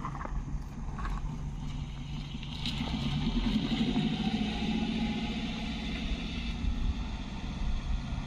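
A motor engine running steadily, its pitch and level rising about three seconds in and then easing off.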